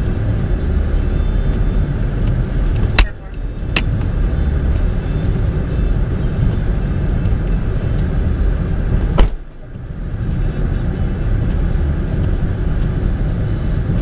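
Steady low rumble of a vehicle idling, heard from inside the cab. Sharp knocks come about three seconds in, again just after, and a louder one about nine seconds in.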